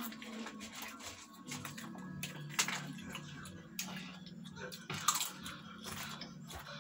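Hot chips being bitten and chewed, with scattered sharp crunches and crinkles of snack packets.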